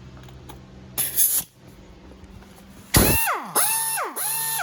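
Small pneumatic impact wrench, fed through a drilled-out 3/8-inch high-flow air fitting, free-spinning in short trigger pulls. There is a brief hiss of air about a second in. From about three seconds there are three quick bursts, each spinning up to a steady high whine with rushing air and then winding down.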